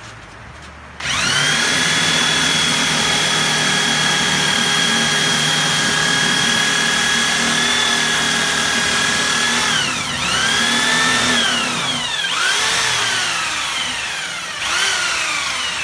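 Electric drill spinning a wood stick through a dowel-making jig, shaving it round into a 10 mm dowel. The drill starts suddenly about a second in and runs at a steady whine over a hiss of scraping wood, then near the end slows and picks up speed again three times before winding down.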